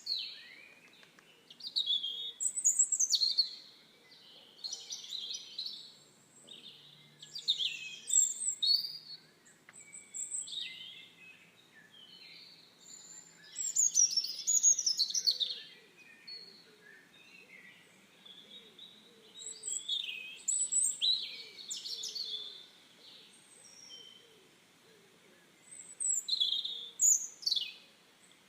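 Birds singing: bouts of high chirps and warbled phrases every few seconds, with short pauses between.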